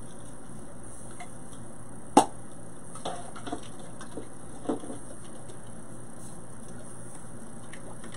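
A sharp click about two seconds in, then a few soft knocks and taps of objects being handled, over a steady background hiss.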